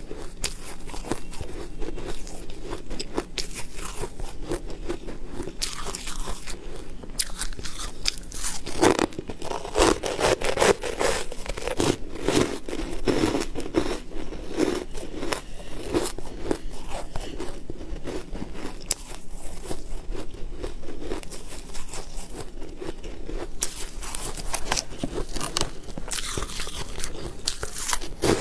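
Close-miked crunching and chewing as frozen purple balls are bitten and eaten. The crackling crunches go on throughout and are loudest about a third of the way in.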